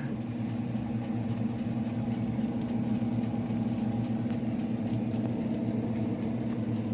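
Electric oven running with its grill switched on: a steady, even hum.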